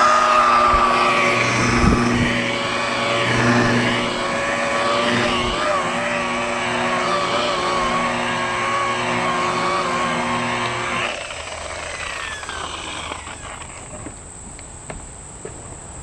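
Electric rotary buffer running on a jet-ski hull's gel coat, its motor whine wavering in pitch as pressure on the pad changes. It shuts off abruptly about 11 seconds in.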